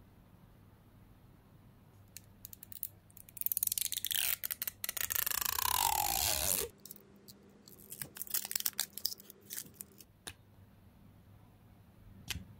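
Hands handling a Sephora kohl eyeliner pencil and its packaging: scattered small clicks, then a loud noisy rasp of about three seconds that falls in pitch and cuts off suddenly, followed by more light clicks and taps.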